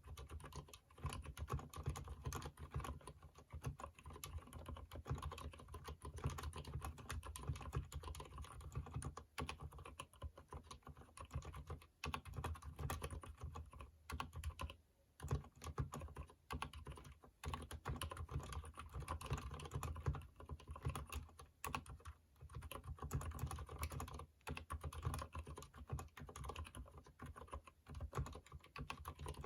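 Continuous typing on a Durgod mechanical keyboard with freshly lubed Cherry MX Silent Red switches, a fast run of keystrokes with a short pause about halfway.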